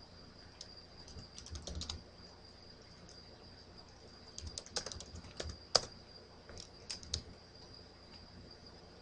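Typing on a computer keyboard: quiet keystroke clicks in a few short bursts, over a faint steady high-pitched whine.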